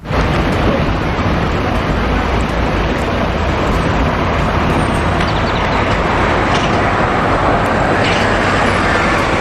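Bus running sound effect: a steady engine and road rumble that starts abruptly.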